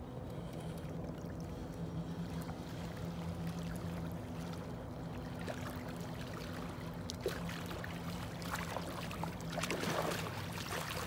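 A hooked striped bass thrashing and splashing at the surface in shallow water, the splashes starting about halfway through and loudest near the end. A steady low hum runs underneath.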